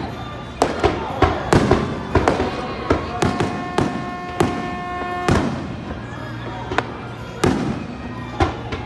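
Aerial fireworks shells bursting in an irregular run of sharp bangs and crackles, with music playing underneath; a single note is held for about two seconds in the middle.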